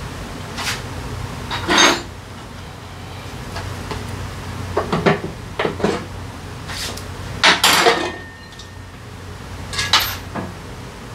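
Metal tools and parts clinking and knocking together in a series of separate sharp clanks, the loudest a little past halfway, as the drivetrain (CVT) cover of a Honda Forza 350 scooter is unbolted and taken off.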